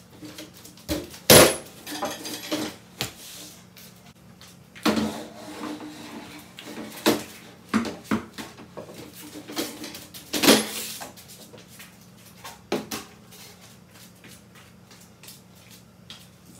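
Plastic folding table being set up and a wooden chair being moved into place: a string of irregular knocks, clatters and scrapes, with the two loudest bangs about a second in and about ten and a half seconds in.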